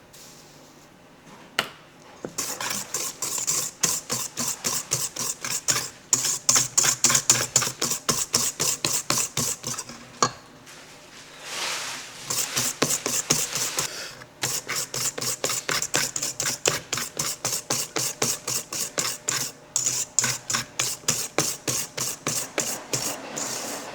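Wire whisk beating egg yolks and sugar in a bowl: rapid scraping strokes, about four a second, with a few brief pauses and a short rushing sound about halfway through. The mixture is being whisked toward the ribbon stage.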